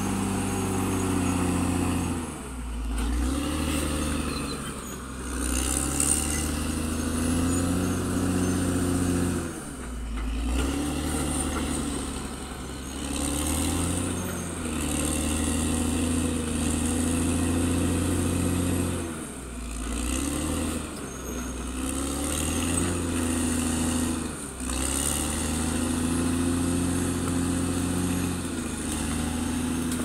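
Caterpillar D6R XL bulldozer's diesel engine working under load, its note sagging and picking back up every few seconds as the machine pushes and eases off.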